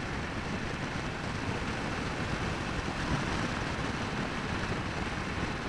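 Royal Enfield Meteor 350's single-cylinder engine running steadily at cruising speed, mixed with a constant rush of wind noise on the microphone.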